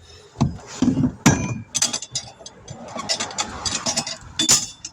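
Irregular metal clanks and knocks from working a tire and rim on a tire-changing machine, just after the bead has been broken free, with a rough mechanical noise between the strikes.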